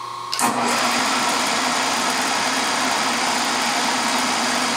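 A vertical knee milling machine's spindle switches on suddenly about half a second in, then runs steadily with a low hum as it spins a small end mill.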